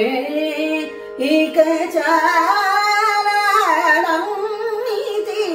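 A woman singing a long drawn-out Carnatic phrase in raga Pantuvarali on the word 'ēka', her pitch gliding and wavering in gamakas, over a steady drone.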